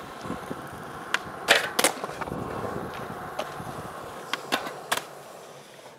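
Skateboard wheels rolling on smooth concrete, with sharp clacks and knocks of the board. A loud pair comes about one and a half seconds in and several smaller ones follow later. The rolling fades near the end.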